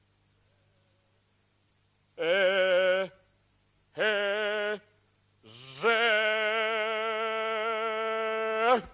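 A man singing three held vowel notes without words: two short notes, then a long one of about three seconds with a slight waver in pitch, which swoops up sharply and cuts off at the end.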